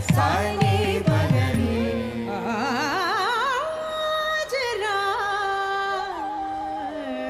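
Carnatic vocal music: a voice sings long, ornamented notes with a wavering vibrato, stepping down in pitch, after a flurry of drum strokes in the first two seconds.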